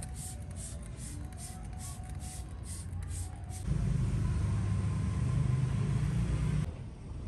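Hand trigger spray bottle spritzing liquid fertilizer onto plants, quick hissing squirts about two or three a second. About 3.7 s in they stop and a louder low steady rumble takes over for about three seconds.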